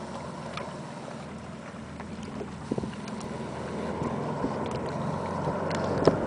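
Twin radial engines of a Grumman HU-16 Albatross flying boat droning on its landing approach, a steady hum that grows gradually louder as the plane comes closer.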